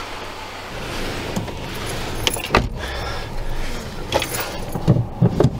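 Keys jangling with scattered clicks and knocks, and one heavy thump about two and a half seconds in.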